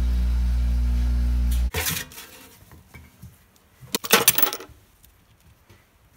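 A steady low hum cuts off suddenly under two seconds in. Loose steel lathe parts (gears and shafts) then clink and clatter as they are dropped into a stainless steel parts pan, briefly about two seconds in and again, louder, about four seconds in.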